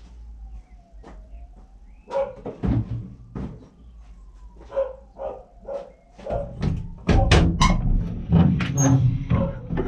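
A dog barking repeatedly in short barks, with loud knocking and clattering close by during the last few seconds.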